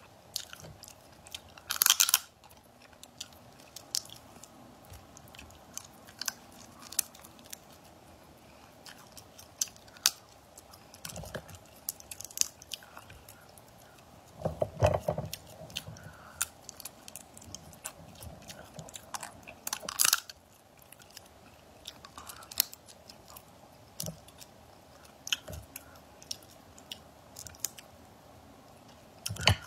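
Close-miked eating of spiced crab claws: chewing and biting into the meat, with many short sharp clicks and cracks of shell and a few louder bursts, about two seconds in, midway, and near the end.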